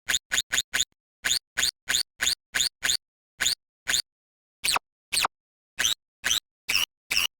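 Short slices of a blender recording chopped and sequenced into a stuttering rhythm, about three chops a second with dead silence between them, each chop sliding down in pitch.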